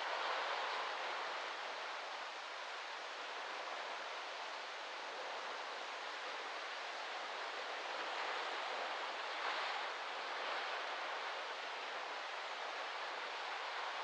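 Small waves lapping and washing onto a sandy beach, mixed with wind rustling through palm fronds: a steady hiss that swells gently just after the start and again about two-thirds of the way through.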